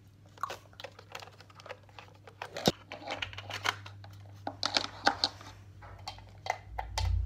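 Handling noise close to the microphone: scattered small clicks, taps and rustling as a device is put on to charge, with one sharper click about two and a half seconds in. A faint low hum sets in shortly after.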